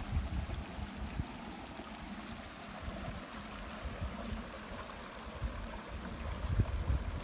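Shallow mountain creek rushing and gurgling over rocks in a steady wash of water noise, with low rumbling on the microphone that grows stronger near the end.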